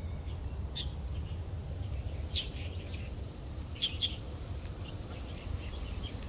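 Small birds chirping in short scattered calls, a few close together about four seconds in, over a steady low rumble.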